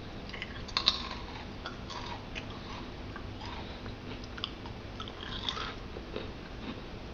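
Crunchy sound of salt-fried kerupuk (Indonesian crackers): scattered crisp snaps and crackles, with a sharper pair of snaps about a second in and a short flurry later on.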